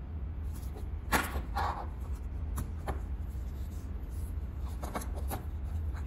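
Handling noises: light clicks and knocks of small objects being moved about, the loudest about a second in, over a steady low hum.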